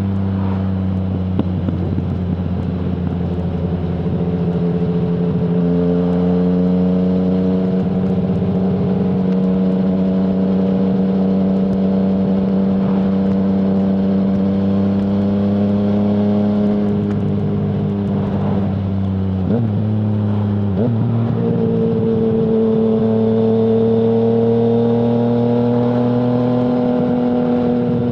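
2020 Yamaha MT-09's 847 cc inline-three engine through an Akrapovic full-system exhaust with no dB killer, running at steady cruising revs. The revs drop briefly and recover about twenty seconds in.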